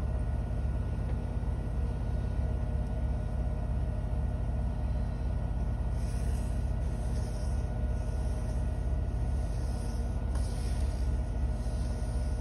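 Washing machine on its spin cycle, a steady low rumble with a hum. From about six seconds in, pencil and brush pen scratch and swish across paper in irregular strokes.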